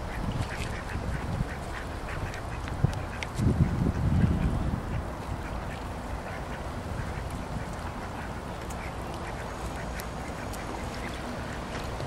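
Ducks quacking on a pond. A low rumble on the microphone, the loudest sound, comes about three and a half seconds in and lasts about a second.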